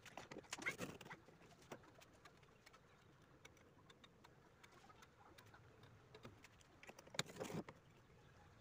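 Near silence with faint clicks and rustling in two short clusters, one at the start and one about seven seconds in.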